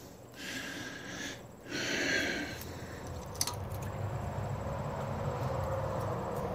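Two heavy breaths out through the nose, each about a second long. Then a single light click about three and a half seconds in, over a steady low hum.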